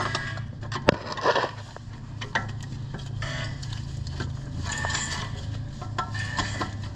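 Metal hand tools clinking and scraping against car suspension parts, with scattered clicks and one sharp click about a second in, as a joint is worked apart.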